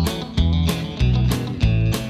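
Background music: guitar-based music with a steady beat of about three strokes a second.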